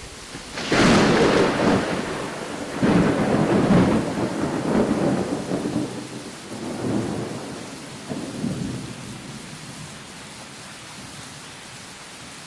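Thunderstorm sound effect: a thunderclap about a second in, a second loud roll near three seconds, then weaker rumbles dying away by about ten seconds, over a steady hiss of rain.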